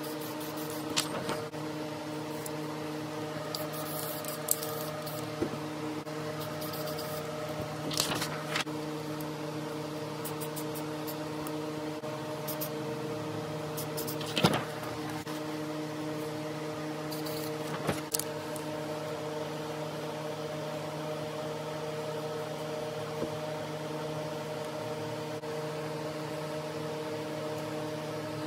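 A steady machine hum with several held tones, overlaid by a few brief clicks and rustles of paper being handled, the loudest about eight and fourteen seconds in.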